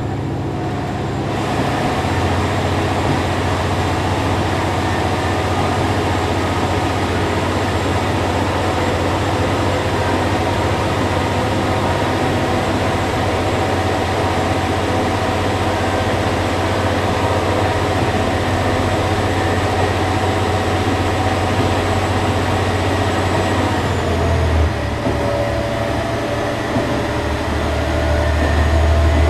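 JR Shikoku 1000 series diesel railcar running, with a steady low engine hum and the rumble of the car on the track. Shortly before the end the engine note drops and changes, then comes back louder.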